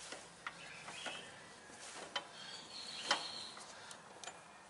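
Faint metallic clicks and knocks of a two-jaw puller being worked with a wrench, drawing a pulley off a rusted mower crankshaft; a few separate clicks, the loudest about three seconds in.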